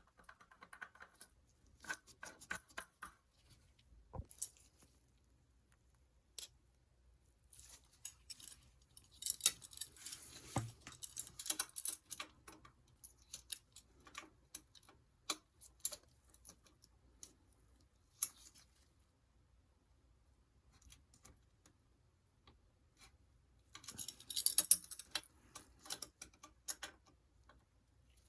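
Metal tools and bicycle parts clicking and clinking as they are handled during bottom-bracket work, with bursts of metallic rattling about ten seconds in and again near twenty-five seconds.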